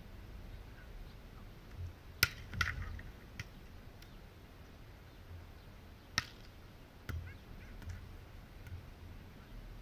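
A few sharp slaps of a beach volleyball being struck, the loudest about two seconds in and another about six seconds in, over a low rumble.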